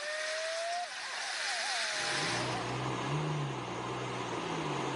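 A white Porsche driven hard, heard from inside the cabin: steady road and wind noise, with the engine note rising and falling from about two seconds in.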